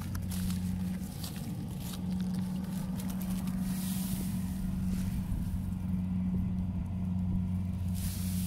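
Rice combine harvester's engine running steadily, a low even hum.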